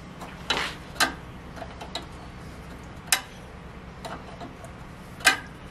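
Scattered sharp metallic clicks and clinks of hand tools and fittings on the air-suspension valves and lines of a bare car subframe, with four louder clicks spread across the few seconds.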